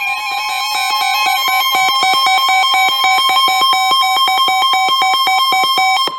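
Weather-radio alarm on a RadioShack 12-521: a steady 1050 Hz NOAA warning tone, with a fast pulsing alarm of about seven beeps a second sounding over it. The pulsing alarm cuts off just before the end, leaving the steady tone.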